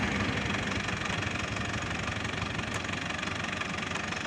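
Foton farm tractor's diesel engine idling steadily.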